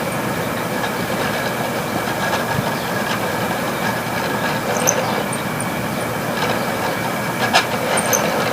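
Room air conditioner running hard with its compressor in overload: a steady mechanical drone with two steady whines, and the fan blades sloshing, with scattered clicks and rattles and a sharper click near the end.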